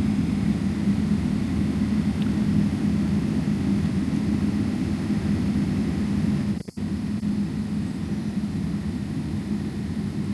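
Cabin noise inside a Boeing 777-300ER: the steady low drone of its GE90 jet engines with airflow hiss. The sound breaks off for an instant about two-thirds of the way through, then carries on slightly quieter.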